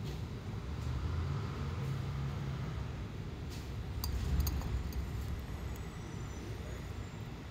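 Steady low background rumble, with a few light clicks about four seconds in.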